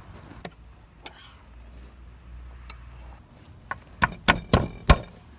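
A fist strikes the flat of a chef's knife blade to crush a garlic clove on a wooden butcher-block board. A few light clicks come first, then about five sharp knocks in quick succession near the end.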